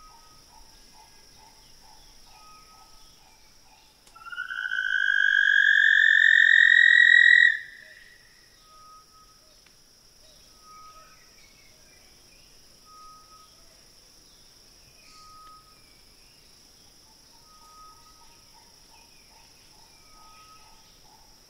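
Scaly-throated honeyguide calling: one long purring trill, rising slightly in pitch, that lasts about three and a half seconds from about four seconds in.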